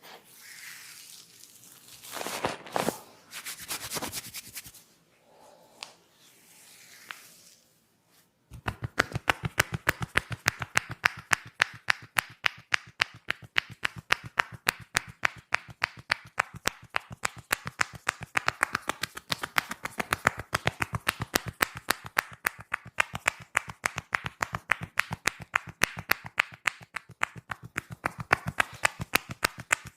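Fast, rhythmic hand slaps of a percussive head and shoulder massage, several sharp strokes a second, starting about eight seconds in after quieter, irregular handling sounds.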